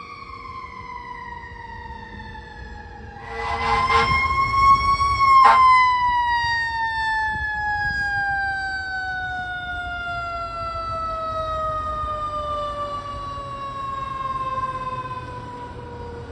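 Fire truck's mechanical siren winding down in one long, slowly falling tone. A brief louder blast and a rise in truck noise come about three seconds in as the truck passes, then the siren fades as it coasts lower.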